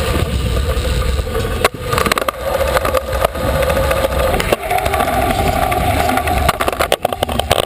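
Stunt scooter wheels rolling over the park floor, picked up through a camera mounted on the scooter: a steady rolling hum that steps higher about halfway through, with a few sharp knocks.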